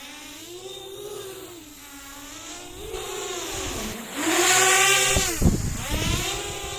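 A 10-inch FPV quadcopter's motors and propellers buzz while carrying a 1.65 kg load, the pitch rising and falling as the throttle changes. About four seconds in it gets louder and higher for over a second, with a couple of sharp knocks near the peak.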